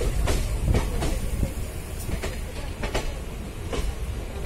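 Wheels of a moving passenger train clacking irregularly over rail joints and points, over a steady low rumble of the running coach.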